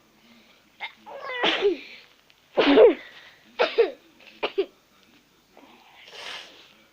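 A child sneezing several times in quick succession: throaty, cough-like sneezes, the loudest about three seconds in, then a softer breathy exhale near the end.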